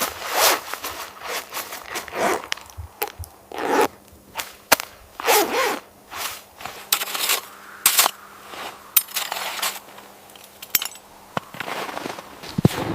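Irregular handling noises: short scrapes and rustles mixed with many sharp clicks.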